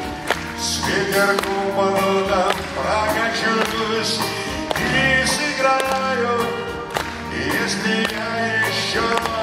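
Live music: a man singing to his own strummed twelve-string acoustic guitar, over a low bass part.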